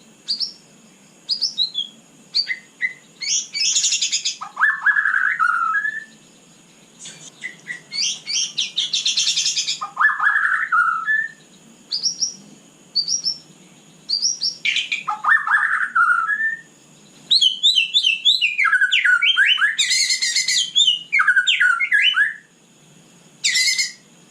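White-rumped shama singing: phrases of short clear whistled notes lead into rapid high chattering and lower fluting warbles, the pattern repeating every five or six seconds, with a longer run of quick descending notes toward the end.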